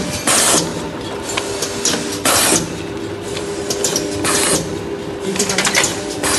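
Automatic paper dona plate making machine running and pressing bowls in a steady cycle: a short rushing burst about every two seconds, with quick mechanical clicks and a steady hum in between.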